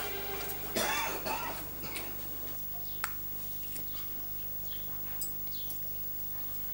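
A short vocal sound from a person about a second in, then a quiet room with a steady low hum and a few faint small clicks.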